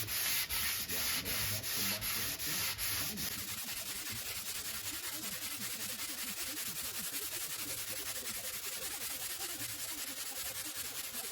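80-grit sandpaper on a hand sanding block rubbed back and forth over a chalkboard, rhythmic rasping strokes at about three a second that turn faster and denser after about three seconds.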